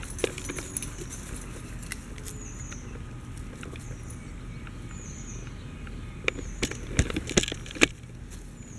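Puppy chewing on a stick: a handful of sharp cracks and clicks between about six and eight seconds in, over a steady low background.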